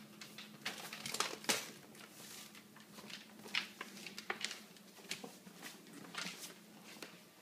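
Newfoundland dog rummaging and handling something that crinkles: irregular rustling, crinkling and sharp knocks, over a low steady hum.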